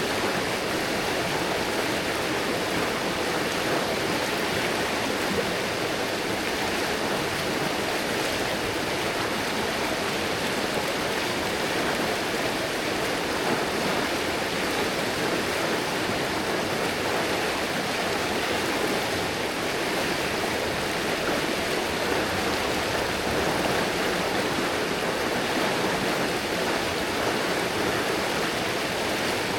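River water rushing steadily over rocks, an even unbroken flow.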